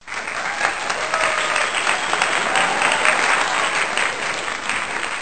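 Crowd applauding: dense, steady clapping.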